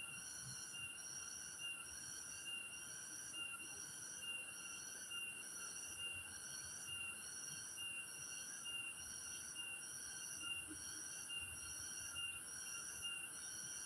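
Insects calling in a steady chorus: a continuous high whine with a pulsing call that repeats a little under twice a second.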